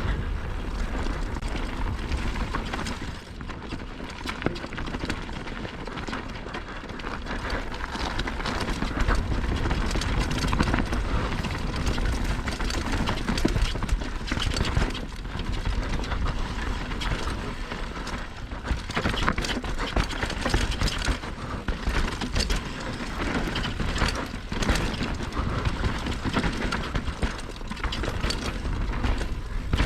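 Mountain bike descending a rough downhill trail: tyres crunching and sliding over loose, dry dirt and rocks, with frequent rattles and knocks from the bike over bumps and a steady low rumble of wind on the microphone.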